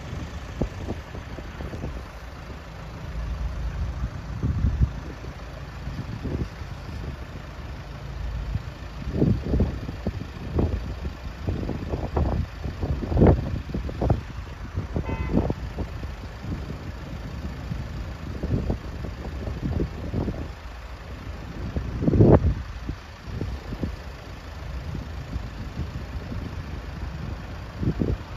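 Road traffic ambience of cars idling while held at closed level-crossing barriers, broken by a run of irregular low thumps through the middle and one louder thump later on.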